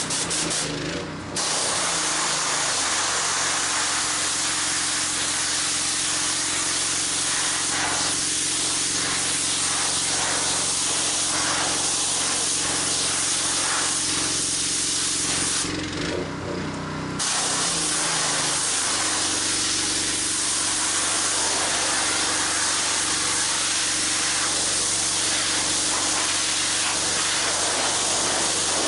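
Pressure washer spraying water from a wand with a white 40-degree tip onto concrete, a loud steady hiss with the pressure washer's engine running underneath. The spray cuts off briefly twice, once near the start and again about two-thirds of the way through, as the trigger is released, and the engine note dips when the spray starts again.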